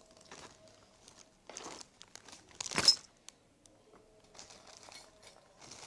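Plastic wrapping crinkling in short, irregular rustles as jewellery pieces are handled, with one louder sharp crackle about three seconds in.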